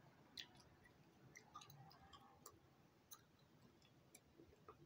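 Near silence: room tone with faint, irregular small clicks, about one a second.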